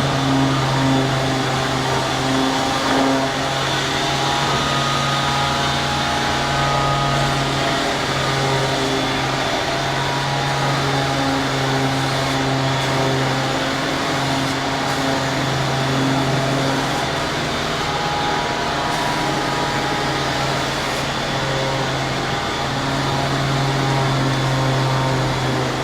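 Woodworking profile wrapping machine running steadily: a continuous loud mechanical hum with a constant low tone and a dense whirring noise over it, without pause.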